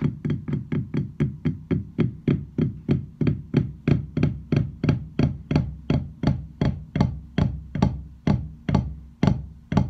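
Wooden drumsticks striking a drum practice pad in alternating single strokes, an even run of sharp taps with a dull thud, about three to four a second at first and slowing to about two a second near the end.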